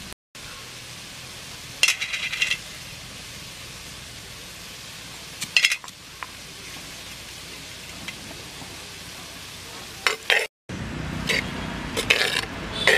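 Short clinks of steel spoons and small metal spice cups as spices go into a clay cooking pot, in a few brief clusters, then a steel ladle clinking against the clay pot as the vegetables are stirred near the end. A steady hiss sits underneath.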